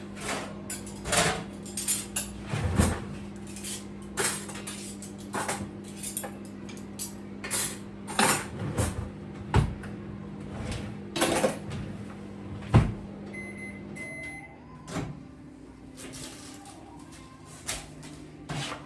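Kitchen clatter of cupboard doors and dishes knocking while a microwave oven hums. About fourteen seconds in, the hum stops and the microwave beeps briefly, signalling that heating is done.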